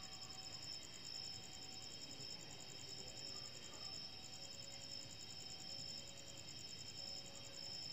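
Crickets chirring steadily, a continuous fast-pulsing high trill, with faint on-and-off lower notes beneath it.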